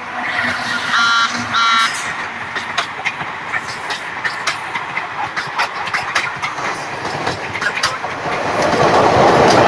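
Passing Indian Railways electric locomotive sounds two short horn blasts about a second in. Its passenger coaches then roll by close, their wheels clacking over the rail joints, and the rush of the train grows louder near the end.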